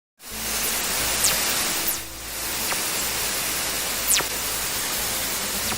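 Space radio recording converted to sound: a steady hiss of static crossed by several quick whistles that sweep downward in pitch. The two clearest come about a second in and about four seconds in. It is presented as fast radio bursts.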